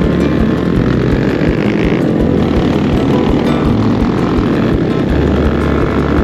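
Small motorcycle engines running steadily at cruising speed, heard from the moving bike, with heavy wind buffeting on the microphone.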